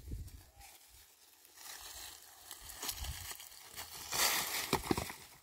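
Loose stones and gravel crunching and scraping as rocks are picked up and moved by hand on a stony slope. The sound is irregular, with a louder stretch of scraping about four seconds in and a couple of short knocks just after.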